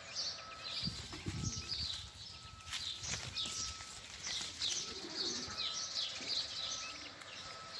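Small birds chirping over and over, short high calls about two a second, with a brief low rumble about a second in.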